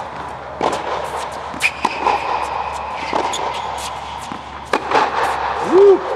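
Tennis balls struck by rackets and bouncing on an indoor hard court during a rally: sharp, irregular pops that echo in the dome. A short squeak rises and falls near the end and is the loudest sound.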